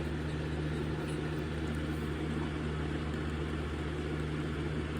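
Electric box fan running steadily: a constant low motor hum under an even rush of air.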